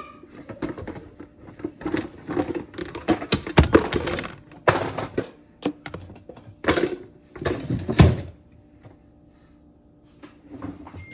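Kitchen clatter: an irregular run of knocks and thunks, with louder clattering bursts of bowls and utensils being handled on a counter, easing off to quiet near the end.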